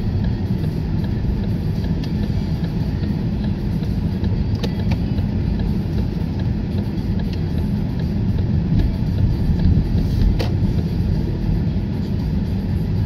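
Car driving slowly through town, heard from inside the cabin: a steady low rumble of engine and road noise, with a couple of faint ticks.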